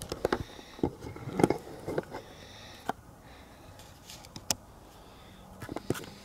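Scattered clicks, taps and rustles close to the microphone, coming at irregular intervals, the loudest about a second and a half in, over faint background hiss.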